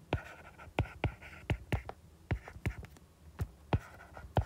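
Stylus tapping on a tablet's glass screen during handwriting: about a dozen sharp, irregular taps, with faint scratchy strokes between them.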